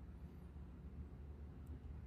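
Quiet room tone with a steady low hum, a faint high chirp shortly after the start and a tiny click near the end.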